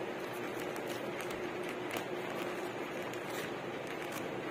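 Plastic courier mailer being cut with scissors and pulled open by hand, giving faint scattered crinkles and snips over a steady background hiss and low hum.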